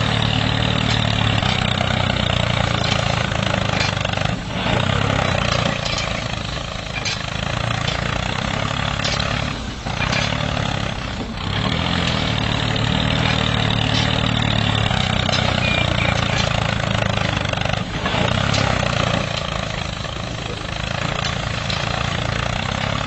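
Miniature model tractor running steadily with an engine-like drone and a low hum.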